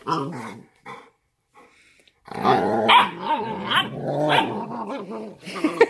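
Cane Corso mother and puppy growling while they wrestle: the mother is pinning the puppy down because it keeps biting her. A couple of short growls, then steady growling from about two seconds in.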